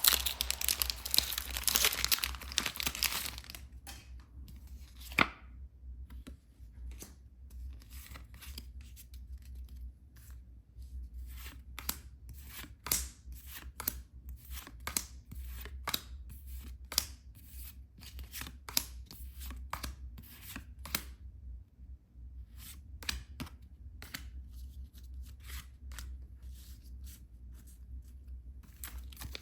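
Pokémon card packaging being torn open, a few seconds of dense tearing and crinkling, followed by a long, irregular run of sharp clicks and snaps as the cards and packaging are handled, over a low steady hum.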